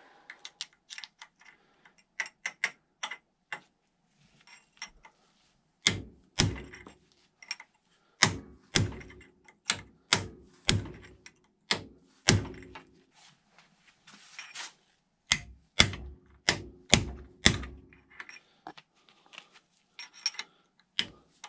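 Metal parts and hand tools on an ATV's front suspension knocking and clicking as they are worked loose. Light irregular clicks give way, about six seconds in, to heavier knocks coming about one or two a second.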